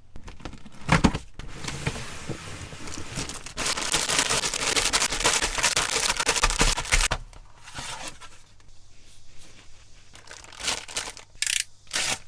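Clear plastic bags of model-kit runners crinkling and rustling as they are handled in a cardboard box, loudest in the middle and quieter and more broken toward the end. There is a single thump about a second in.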